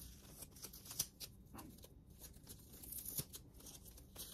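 Faint rustling of paper with scattered small crackles and clicks as taped art prints are handled and the tape is worked loose.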